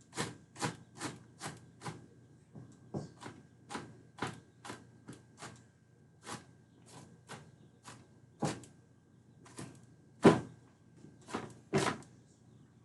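Kitchen knife chopping red onion on a cutting board: a quick, uneven run of sharp knocks, roughly two a second, with a few harder strikes.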